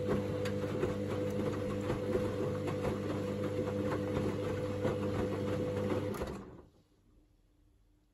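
Hoover DynamicNext washing machine in its main wash: the drum motor runs with a steady hum and irregular light clicks and knocks, then stops suddenly about six seconds in as the drum pauses.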